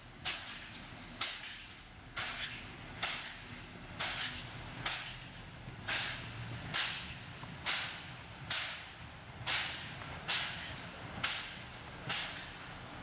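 Pt47 steam locomotive working slowly with its train, its exhaust chuffing at an even beat of roughly one chuff a second.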